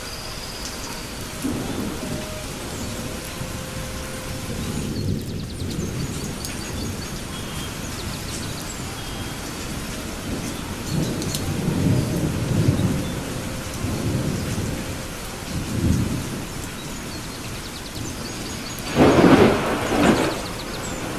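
Steady rain falling, with several low rolling rumbles of thunder that swell and fade. A louder, sharper thunderclap comes near the end.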